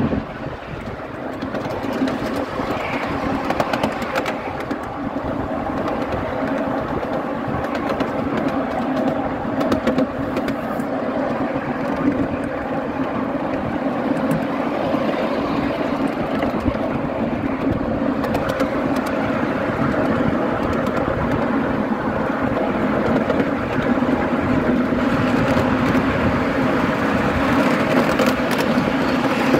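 Miniature railway passenger cars rolling along 7¼-inch gauge track: a steady rumble and hum of small steel wheels on rail, with scattered clicks from rail joints and points.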